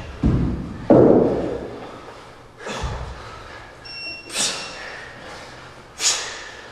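A kettlebell thuds down twice onto a rubber floor mat. Then come three sharp, hissing exhalations about a second and a half apart as the kettlebell is swung.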